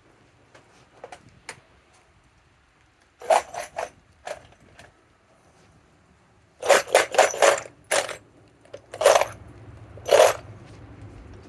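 Clattering and clinking of tools and hardware being handled and rummaged through in a box or case. It comes in two bursts: a short one a few seconds in and a longer, louder run of knocks from about the middle on.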